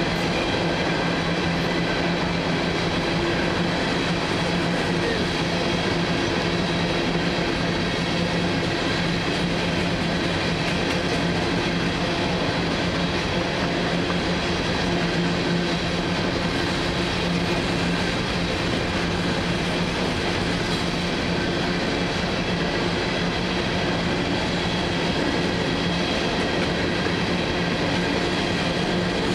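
Freight train cars rolling steadily past on the rails, a continuous even sound with a steady hum running through it.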